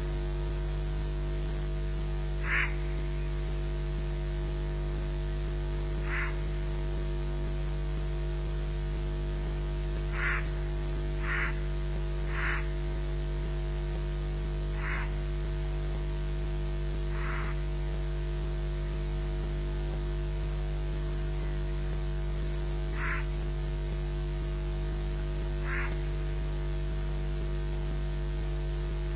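Steady electrical mains hum and hiss from the nest-camera microphone feed, with about nine short bird calls scattered irregularly through it.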